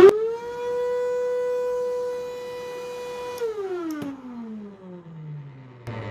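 Metabo ASR 35 ACP vacuum's motor, just rebuilt and on its test run, running with a steady whine. A little over three seconds in it is switched off with a click and winds down in a long falling whine. Another steady hum starts just before the end.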